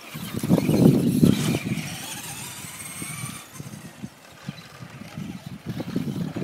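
Traxxas Rustler RC truck's motor whining as it drives on a dirt track, the high whine rising and falling in pitch over a low rumble. It is loudest about a second in, drops away as the truck drives off, and picks up again near the end.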